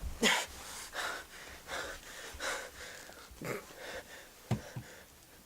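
A person's breathy gasps, short and repeated about once a second, the last two close together near the end.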